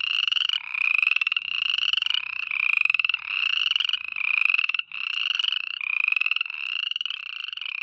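Chorus of frogs calling at night, an unbroken run of overlapping high-pitched trilled calls, each about half a second long.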